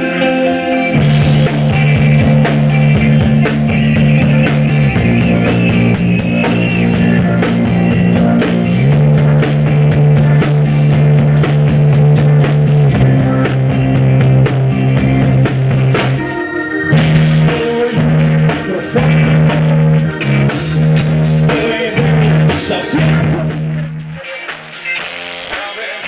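Live rock band playing: low held bass notes that change every few seconds under drums and guitar. About sixteen and a half seconds in the band stops for a moment, then comes back in a choppier rhythm, and near the end the low notes drop out.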